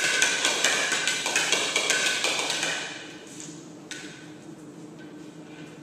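Hard plastic Jolly Egg dog toy knocking and clattering on a hard floor as a dog chases and pushes it with its nose: rapid knocks with a short ringing tone for about three seconds, then quieter, with one more knock about four seconds in.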